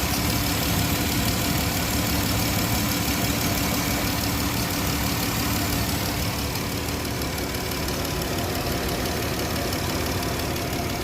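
2012 Chrysler Town & Country's 3.6-litre V6 idling steadily, with a constant hum and an even whooshing noise, running with the new thermostat fitted.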